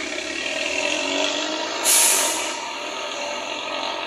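Mercedes-Benz OF1621 city bus with an automatic gearbox and a Euro 3 diesel engine (no urea) pulling away, its engine note rising. About two seconds in, a short, loud burst of compressed-air hiss comes from the air system. The engine then fades as the bus moves off.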